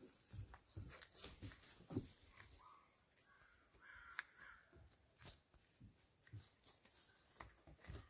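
Faint scattered clicks and scuffles of a flat-coated retriever puppy moving about and mouthing a bird wing, with a few short harsh sounds, the clearest about four seconds in.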